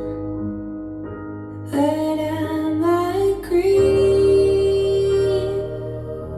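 Slow, tender song: a woman sings long drawn-out notes over a steady low accompaniment, one note held for a second and a half or so near the middle.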